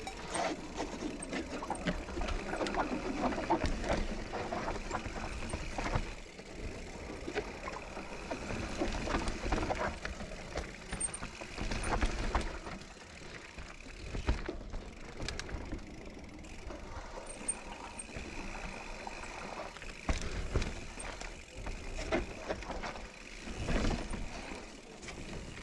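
Kona Process 153 full-suspension mountain bike riding down a dirt singletrack trail: steady tyre noise over the ground, with frequent clicks, knocks and rattles from the bike as it rolls over roots and rocks.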